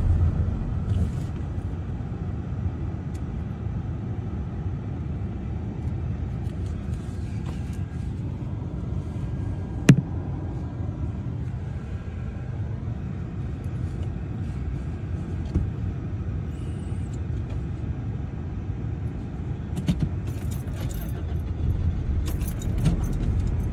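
Steady low rumble of a car idling, heard from inside the car, with a single sharp click about ten seconds in.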